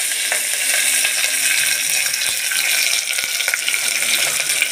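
Chopped onions and curry leaves sizzling in hot oil in an aluminium pot, a steady hiss with a few small crackles: the onion stage of a tempering with mustard-seed seasoning.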